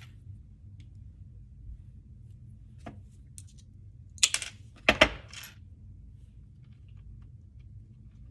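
Small hard objects clinking and tapping on a work surface: a faint tap about three seconds in, then two short clusters of sharp clinks a little past four and five seconds in.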